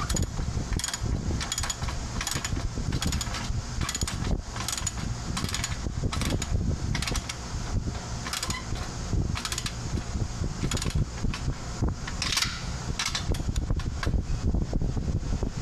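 A wrench clicking in short, irregular strokes, a few a second, as the collector-to-muffler clamp bolt of a motorcycle exhaust is tightened, over a steady low rumble.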